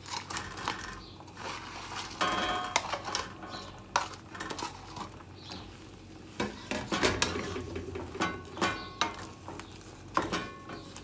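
Shrimp being pushed off a plate with a wooden spoon into a skillet of hot melted butter, then stirred: irregular knocks and clinks of the spoon against the plate and the pan over a light sizzle.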